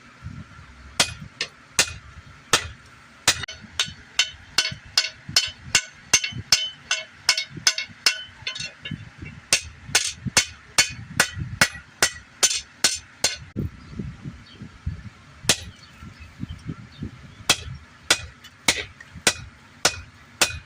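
Blacksmith's hand hammer striking hot steel on an anvil while forging a chisel: a run of ringing blows, about two to three a second, with a short pause about two thirds of the way through.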